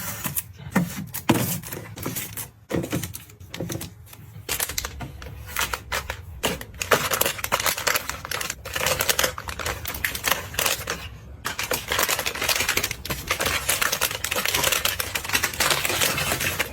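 Rapid, irregular clicking and clattering of small hard items being handled and set down, busiest in the second half.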